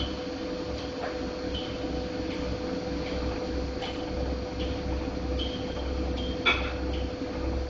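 Godrej fully automatic washing machine running with a steady hum and a low, uneven pulsing rumble, with scattered short knocks and clicks; one sharper knock comes near the end.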